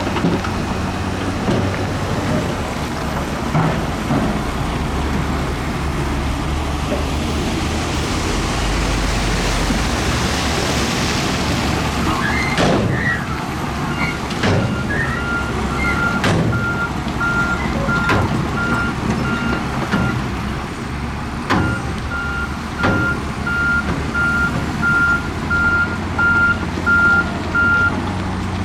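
Diesel engine of heavy construction machinery, a dump truck or bulldozer, running steadily. About a third of the way in there is a hiss of air, then several metal clanks. A backup alarm beeps steadily through the second half, with a short break.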